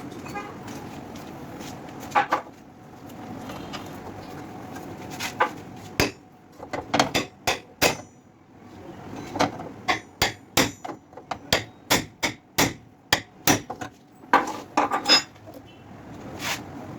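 Hammer blows on car body sheet metal during collision repair: a pair of strikes about two seconds in, then a long, irregular run of sharp strikes from about six seconds in, often two a second.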